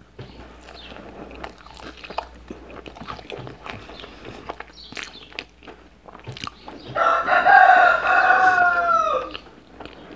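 A rooster crows once: a long call starting about seven seconds in that holds steady and then falls in pitch at the end. Soft chewing and mouth clicks come before it.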